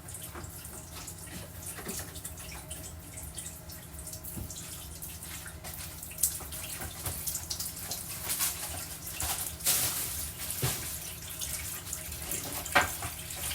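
Water running from a tap into a sink, with a steady low hum underneath and a few sharp knocks and clatters of items being handled.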